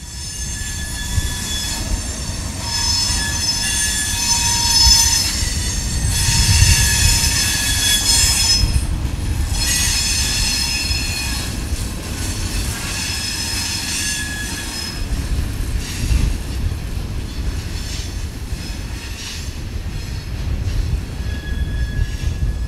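Freight hopper cars rolling past on curved track, their wheels squealing in high-pitched tones that swell and fade in waves over a low rolling rumble. The squeal is strongest in the first half and thins out later, returning briefly near the end.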